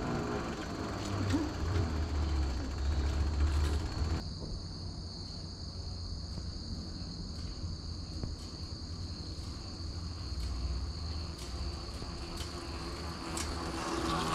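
Steady high-pitched trill of insects over a low rumble. About four seconds in the fuller, louder background noise cuts off abruptly, leaving the insect trill and a faint hum.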